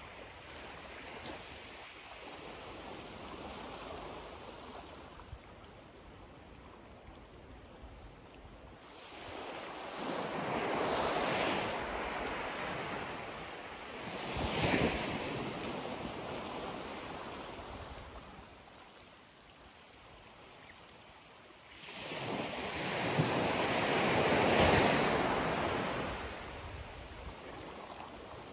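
Small waves washing gently onto a sandy shore of a calm bay. The wash swells louder about a third of the way in, with a sharper splash around halfway, and swells again about three-quarters of the way through.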